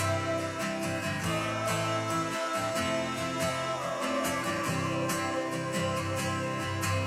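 Background music with acoustic guitar, country in style, with a steady beat.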